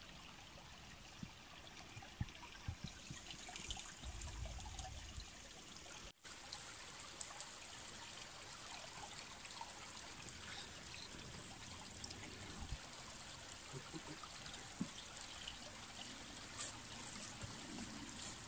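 Shallow stream trickling over stones, a faint steady wash of water.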